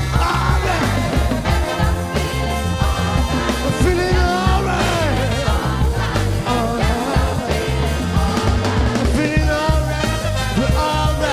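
A large live rock-soul band playing an instrumental passage: a pulsing bass and drum groove under a melodic line that bends up and down in pitch.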